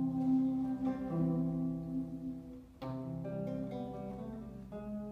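Solo acoustic guitar playing an instrumental passage: picked chords that ring on and fade, with new chords struck about a second in, near three seconds in and again near the end.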